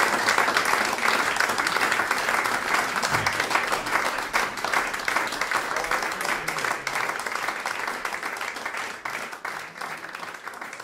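Audience applauding at the end of a live concert, the clapping growing steadily quieter.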